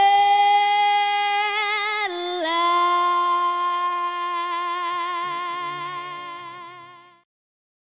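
A woman's voice holding one long closing sung note: it slides down into the pitch, shifts slightly about two seconds in, then wavers with vibrato and fades until the sound cuts off about seven seconds in.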